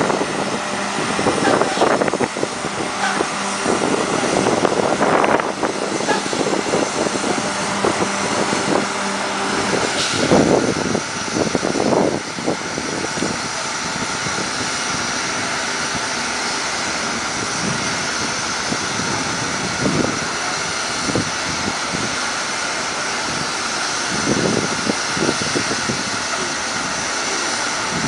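Diesel coach buses running in a parking lot: a steady engine drone with general traffic noise and a few brief louder moments.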